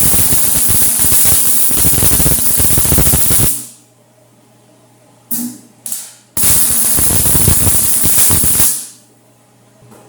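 Electric arc welding tacking 1/4-inch steel channel together: two welds that crackle and hiss, a long one of about four seconds and then a shorter one of about two seconds, with two short arc strikes between them. A faint steady hum runs underneath.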